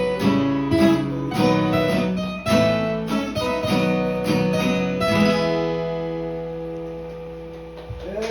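Acoustic guitar playing the last chords of a song. About five seconds in a final chord is struck and left to ring, slowly dying away.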